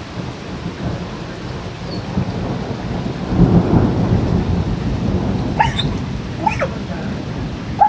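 Thunder rumbling over steady rain, swelling to its loudest about three to four seconds in. Near the end a dog gives three short barks.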